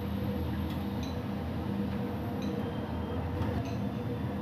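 Kalo jam sweets gently frying in oil in a frying pan over a gas burner, a steady low rushing noise, while a metal spatula ticks and clinks lightly against the pan a few times as the sweets are turned.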